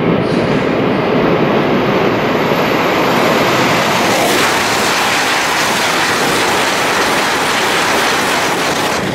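Tohoku Shinkansen high-speed train, an E6 set coupled to an E5 set, running out of a tunnel hood and past at speed: a loud, steady rush of air and rolling noise that turns brighter and hissier once the nose clears the portal about four seconds in.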